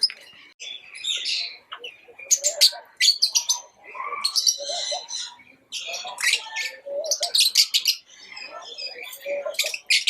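Pet lovebirds chirping: rapid, shrill chirps and chatter in quick clusters, broken by short pauses.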